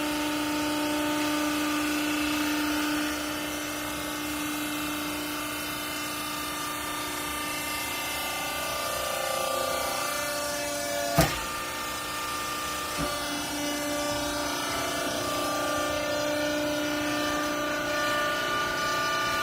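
Hydraulic baling press running, its motor and pump giving a steady whine whose pitch shifts slightly a few seconds in, with a sharp bang about eleven seconds in and a lighter knock soon after.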